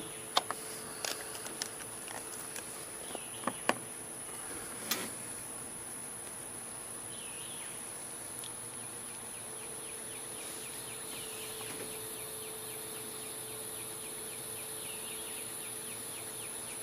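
Steady high-pitched drone of insects, with a fast, evenly pulsing chirp trill joining about ten seconds in. A few soft clicks come in the first few seconds.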